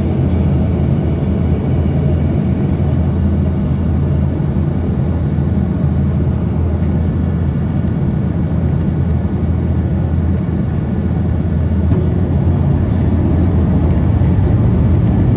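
Airliner engines and rushing air: a steady, loud, low rumble that grows slightly louder near the end.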